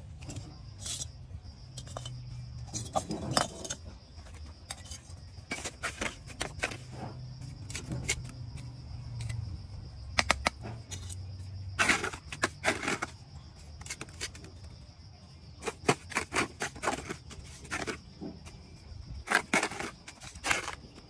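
Steel bricklaying trowel working mortar and tapping red clay bricks into place: an irregular run of sharp clinks, taps and short scrapes, busiest about twelve seconds in and again near the end.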